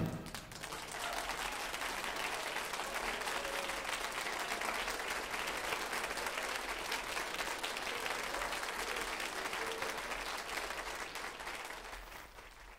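Audience applauding: steady clapping that begins as the band's music stops and fades out near the end, heard from a vinyl LP recording.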